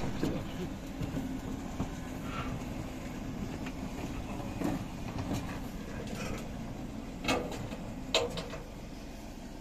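Flatbed tow truck running with a steady low hum and scattered metal clanks, two louder clanks near the end.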